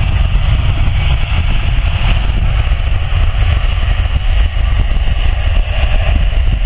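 Jet airliner's engines running at takeoff power, a loud, steady low rumble with a hiss above it.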